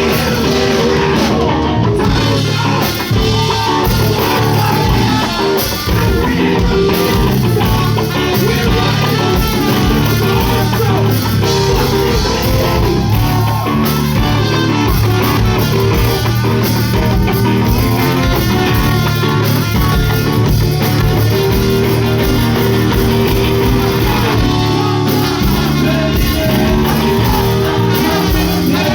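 Rock band playing live, with electric guitar and drum kit, at a steady loudness throughout, with some singing over it.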